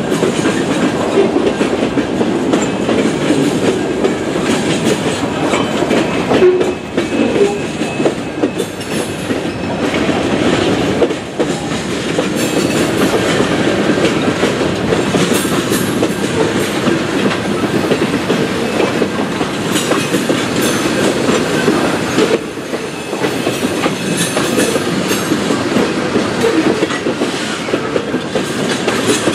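Freight train cars passing close by: open-top hoppers, then tank cars. Their steel wheels make a steady, loud rolling rumble on the rails.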